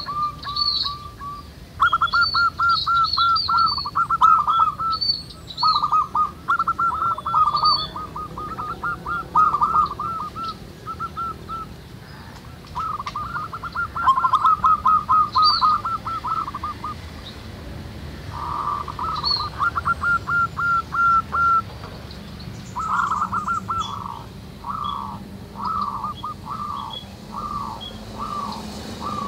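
Zebra doves (perkutut) cooing, several birds calling in overlapping runs of short, quickly repeated notes with brief pauses between runs, and thin higher chirps from other small birds scattered over them.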